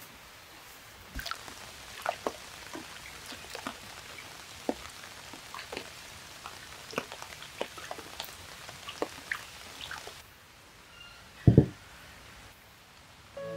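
Hands swishing raw chicken drumsticks in water in a clay pot, with many small splashes and drips. A clay bowl is set down on a wooden table with one heavy thud near the end.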